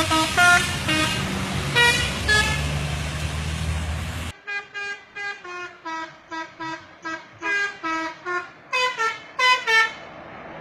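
Bus 'telolet' multi-tone musical horn sounding short notes at changing pitches over the bus's engine rumble. After a sudden cut about four seconds in, the horn plays a quick tune of short notes, about three a second, which stops just before the end.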